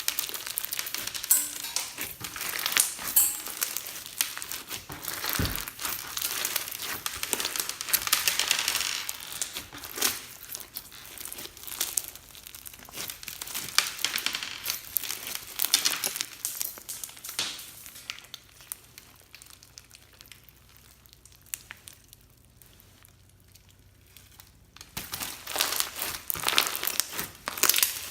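Hands squishing and kneading clear slime mixed with foam beads (floam), a dense crackle of small pops and clicks. It falls away to a lull about two-thirds of the way in, then starts again near the end.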